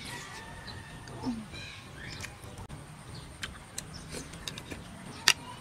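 Close-up eating sounds: fried eel being bitten and chewed, with wet mouth clicks and lip smacks scattered throughout and one sharper, louder click a little after five seconds in.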